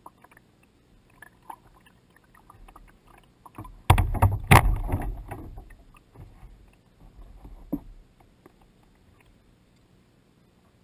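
Kayak paddling: water slapping and splashing against the plastic hull near the bow-mounted camera. A loud cluster of splashes comes about four seconds in and dies away over a couple of seconds, with smaller splashes a little later and only faint lapping near the end.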